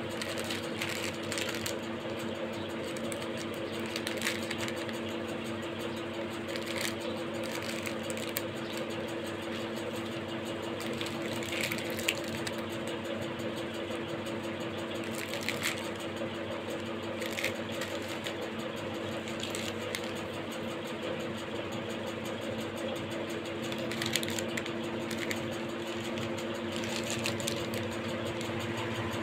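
Steady machine hum with a few constant tones, and over it, every few seconds, brief crinkles of plastic biscuit wrappers being handled.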